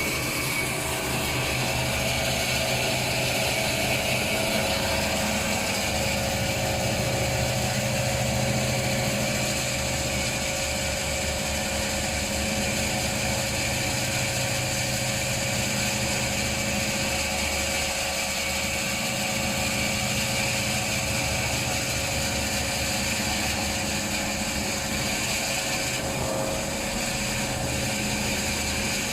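Semi-automatic maxi roll paper band saw cutting machine running steadily: an even machine noise with a constant high whine over a low motor hum.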